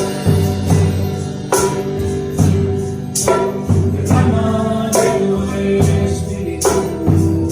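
Band playing a Christian praise song (alabanza) with a steady beat, bass, tambourine and singing.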